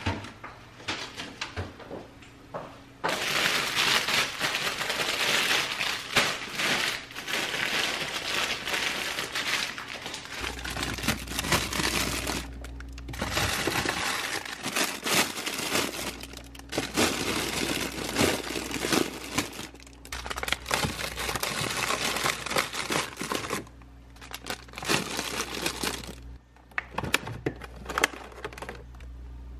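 Plastic produce bags and packaging crinkling and rustling close by as groceries are handled and packed onto fridge shelves, in dense bursts from about three seconds in until near the end.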